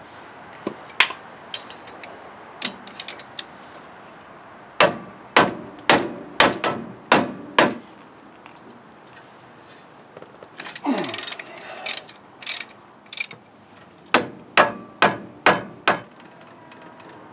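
Hand ratchet clicking in short sets as the front brake caliper bolts (17 mm) are worked loose, about two strokes a second with pauses between sets. A short scraping sound comes partway through.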